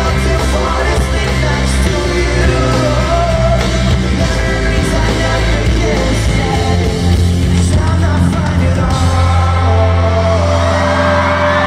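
Rock band playing live and loud, with electric guitars, heavy bass and drums, and a male lead singer, heard from within the arena crowd. High screams from the audience rise over the music near the end.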